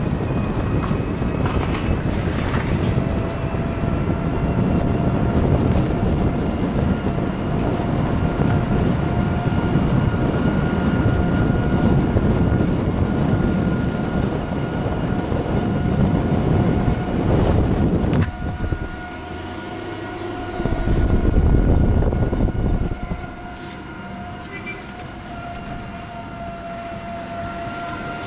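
Wind rumbling on the microphone and road noise during a ride in an open rickshaw, with a faint steady whine underneath. The rumble drops about two-thirds of the way through, surges again for a couple of seconds, then settles lower.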